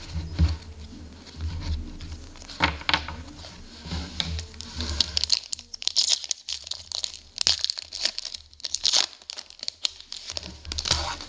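Foil wrapper of a 2014-15 SPx hockey card pack being handled and torn open, crinkling sharply as the cards are slid out. Soft handling knocks come first, and the crisp crinkling starts about halfway through.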